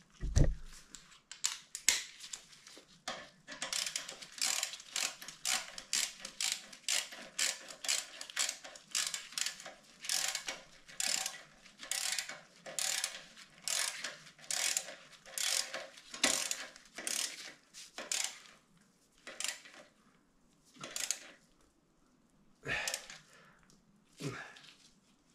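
Ratchet wrench with a 13 mm socket clicking in a steady run of back-and-forth strokes, about two a second, as bolts on the moped's bottom bracket are tightened. The strokes thin out to a few scattered clicks in the last seconds.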